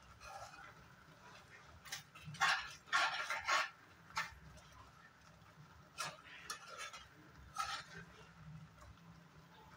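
Metal spoon scraping and clinking against a stainless steel pan as thick milky vermicelli is stirred. A cluster of louder scrapes comes about two to four seconds in, then a few lighter ones.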